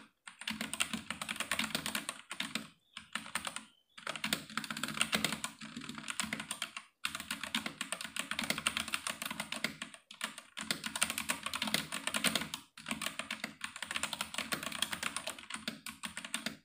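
Redragon K631 Castor 65% mechanical keyboard with red linear switches, in a plastic case and plate, being typed on quickly. The keystrokes come in rapid runs broken by brief pauses.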